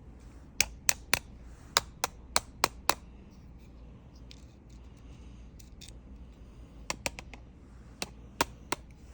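Sharp plastic clicks and taps from handling a spring-powered airsoft pistol and its packaging: about eight quick clicks in the first three seconds, then a few more near the end.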